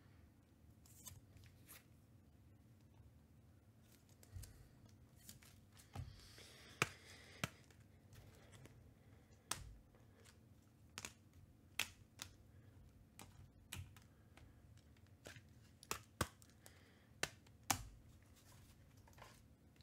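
Sparse, irregular light clicks and taps over quiet room tone, one or two a second, with a brief rustle about seven seconds in.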